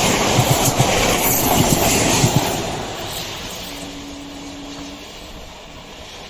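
Passenger train rolling past with its wheels clicking over the rail joints; after about two seconds the noise fades steadily as the train moves away. A faint steady tone lasts about a second near the middle.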